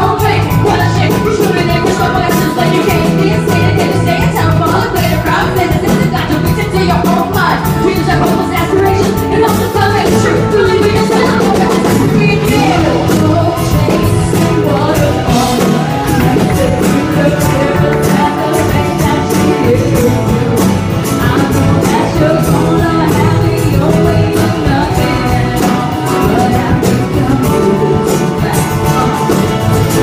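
Live band music in a club, with a woman singing into a microphone over the PA, dense and steady throughout.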